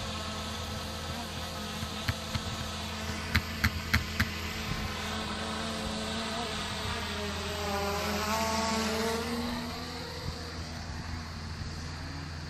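Quadcopter drone propellers buzzing steadily. The pitch shifts and swells briefly a little past halfway as the drone turns. A few sharp clicks come in quick succession in the first few seconds.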